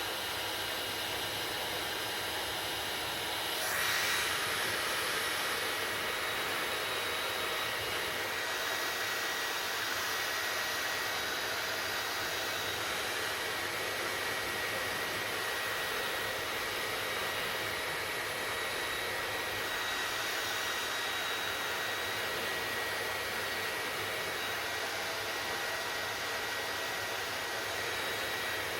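Hair dryer running steadily, a continuous airy rush with a faint high whine. It grows briefly louder about four seconds in.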